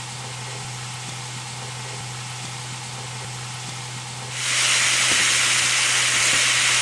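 Diced onions frying in oil in a nonstick pan: a soft sizzle with a steady low hum under it, turning into a loud, even sizzle about four seconds in as the onions are stirred.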